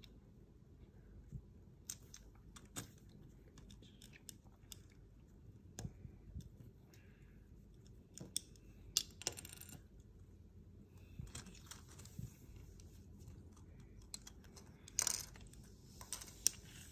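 Small plastic building bricks being handled and pressed together on the model: scattered faint clicks and taps, with a few sharper clicks about halfway through and near the end.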